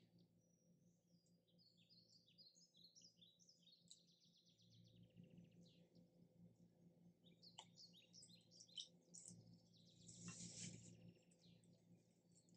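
Faint birds chirping and twittering in quick short calls and trills, over a low steady hum, with a brief louder burst about ten seconds in.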